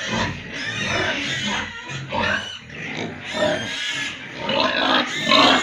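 Pigs in a pen grunting and squealing, with no pause between the calls.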